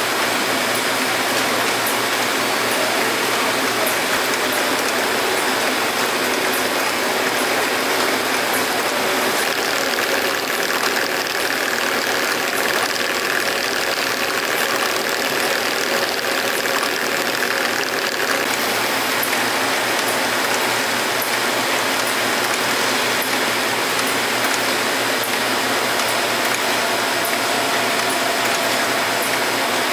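Stelron conveyor walking beam assembly chassis running: a steady mechanical clatter from its conveyors and cam-driven walking beam, with faint light clicks now and then.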